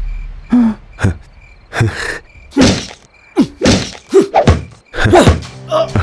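Fight sound effects: a run of about a dozen heavy punches and kicks landing, some with short falling grunts.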